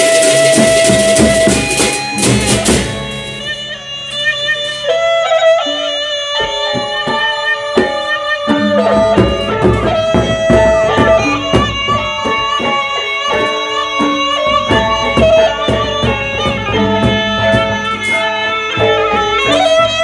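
Sasak gendang beleq gamelan ensemble playing. Dense clashing cymbals and drums thin out about three seconds in, leaving a melody of held, stepped notes over regular drum strokes.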